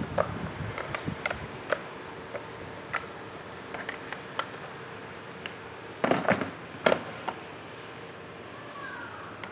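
Kitchen utensils and containers being handled: scattered light clicks and knocks, with a louder clatter about six seconds in, over a faint steady hum that stops near the end.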